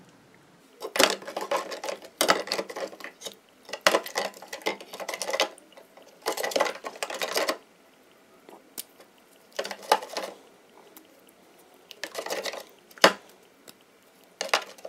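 Small gemstones clinking and scraping against a dish and each other as they are handled, in a run of irregular rattling bursts with sharp clicks among them.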